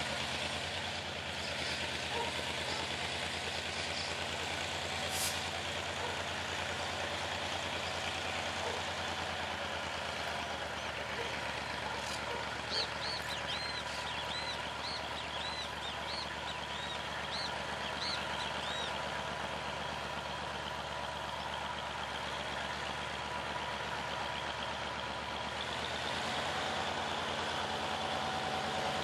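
EMD 12-645E naturally aspirated V12 diesel of a GM G22CU locomotive running steadily as the locomotive rolls slowly forward, a constant low engine drone that grows a little louder near the end as it draws closer.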